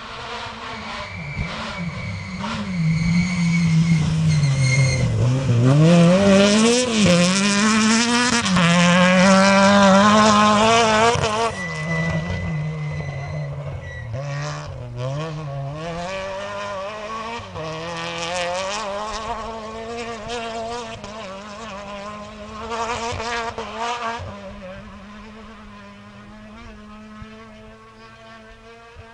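Rally car on a gravel stage, its engine at full throttle with the revs repeatedly rising and dropping. It gets loud as it passes close by about five to eleven seconds in, then fades steadily as it drives off into the distance.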